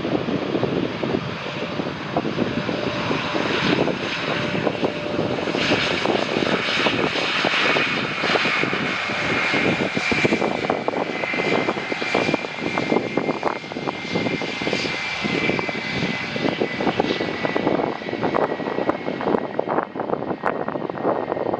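Jet airliner passing close on its landing approach, its engines running with a loud rushing noise and a high whine that drifts slightly lower in pitch as it goes by.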